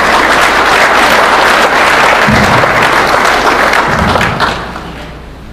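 Audience applauding, many hands clapping together, fading away near the end, with two low thuds partway through.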